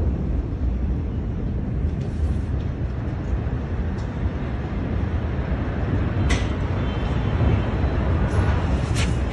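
Steady low rumbling noise on a phone microphone, with a few short sharp clicks about four, six and nine seconds in.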